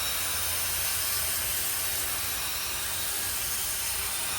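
Garden hose spray nozzle on its shower setting, a steady hiss of water spraying onto a heat pump's outdoor coil.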